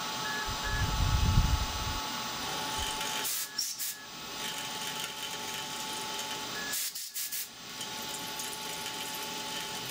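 A small cobalt drill in a milling-machine spindle grinding through the hard nitrided steel of an AR15 barrel under an air blast: a steady hiss and rubbing grind, with a low rumble in the first two seconds. The noise drops out briefly about three and a half and seven seconds in. The nitriding is hard enough to wear the drill out.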